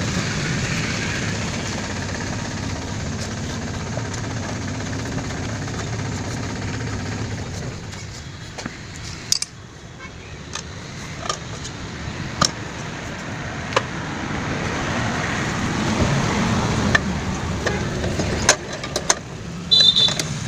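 A motor vehicle engine running, dying down around nine seconds in and building up again, with scattered sharp clicks and taps.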